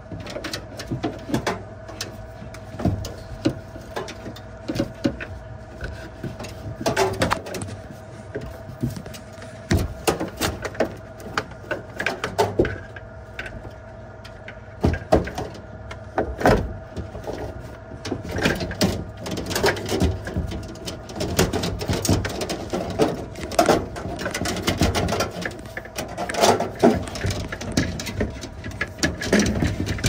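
Irregular knocks, clicks and scrapes of metal as a refrigerator's aluminium-finned evaporator coil is handled and shifted inside the freezer compartment, busier in the second half, over a steady hum.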